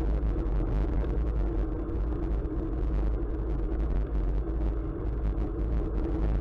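Steady rumble of wind and road noise on a moving camera's microphone, with a continuous low hum and no distinct events.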